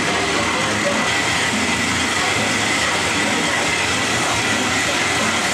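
Horizontal metal-cutting band saw running under coolant, its blade cutting steadily through a thick cast iron block, with a thin steady whine over the even grinding noise of the cut.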